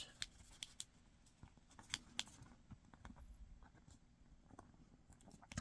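Faint, scattered crinkles and taps of origami paper being folded and creased by hand.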